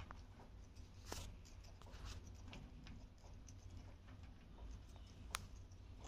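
Faint, scattered clicks and taps from an Alexandrine parrot moving on a wire-mesh cage floor, with one sharper click a little after five seconds, over a low steady hum.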